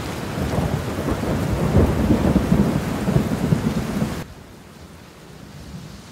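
Thunderstorm: a long rumble of thunder over steady rain, which cuts off abruptly about four seconds in, leaving only quieter rain.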